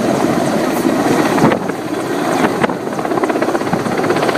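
Helicopter passing close overhead: a loud, steady rotor noise with rapid, even blade beats that grow more distinct near the end.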